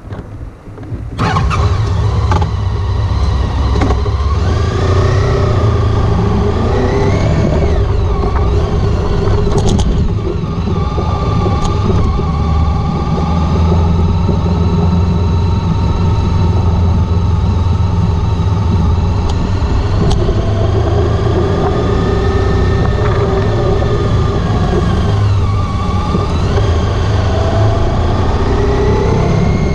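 Honda ST1300 Pan European's V4 engine coming in loudly about a second in, then running steadily, its pitch rising and falling as the motorcycle rides.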